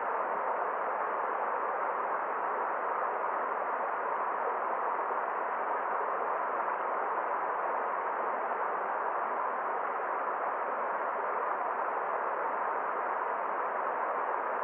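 Steady, even rushing of a forest stream: a constant hiss of flowing water with no splashes or changes.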